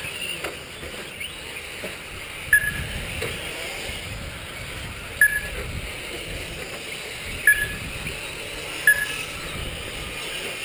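RC short-course trucks racing around the track, heard as a steady noisy hum, with four short electronic beeps spaced a few seconds apart, typical of a lap-timing system beeping as cars cross the line.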